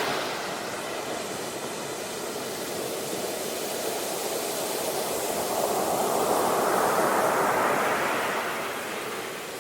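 Sea surf: a wave swelling to a peak about seven seconds in, then washing back and easing.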